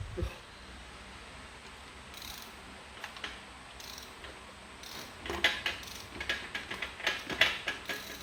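Hand tools working metal on a stripped Nissan RB25 engine: a few scattered clicks, then a quick run of sharp metallic clicks over the last three seconds.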